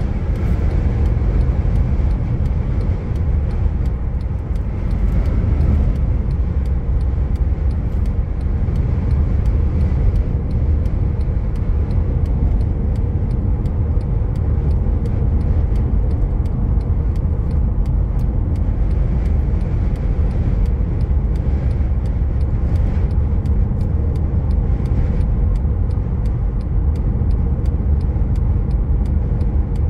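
A car driving at highway speed, heard from inside the cabin: a steady, low road and wind rumble.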